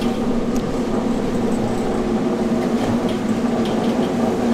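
Hard-candy batch roller running with a steady motor hum while a batch of green apple hard candy turns in its rollers.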